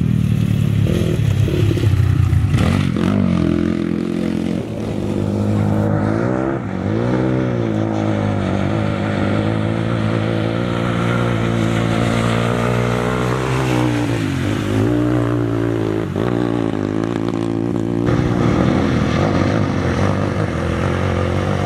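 Dirt bike engine revving hard, its pitch rising and falling again and again as the rider works the throttle and gears. A steady rush of noise runs under it as the bike ploughs through shallow water, throwing up spray.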